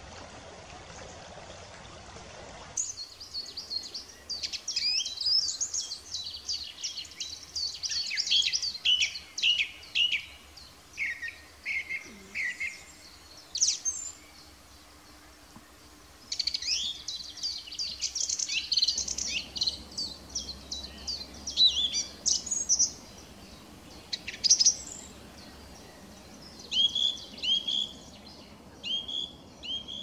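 A steady hiss that stops about three seconds in, then songbirds singing: quick, varied phrases of high chirps and trills with short pauses between them.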